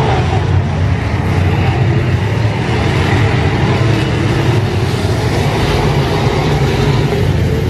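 A field of IMCA Modified dirt-track race cars running their V8 engines around the oval, a loud, steady, overlapping engine drone with no let-up.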